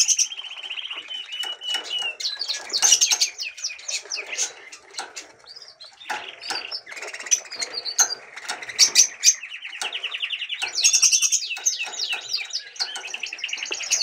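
Budgerigars chattering: rapid warbling trills and short high chirps, one over another, with busier bursts near the start, about three and nine seconds in, and near the end.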